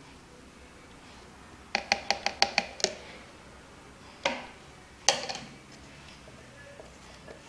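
Wooden stirring stick and plastic measuring jugs knocking: a quick run of about seven light clicks in a little over a second, then two single knocks about a second apart.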